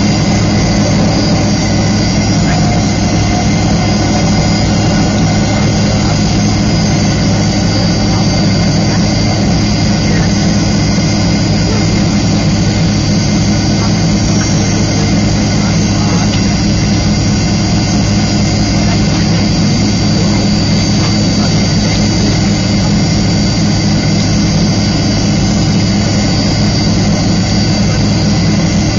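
Cabin sound of a Fokker 70 airliner waiting on the ground, its rear-mounted Rolls-Royce Tay turbofans idling: a steady, loud rumble with a constant high whine over it.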